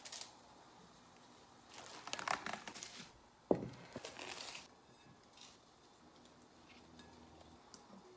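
Plastic cling wrap crinkling as it is stretched over a mixing bowl, in two short bouts, with a single knock between them about three and a half seconds in.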